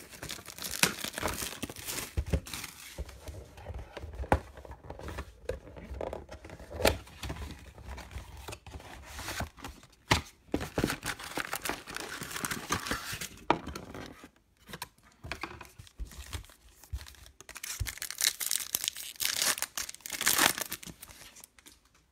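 Plastic shrink-wrap being torn and crinkled off a cardboard trading-card box as it is opened, with irregular crackling and sharp clicks of handling. The loudest crinkling comes near the end.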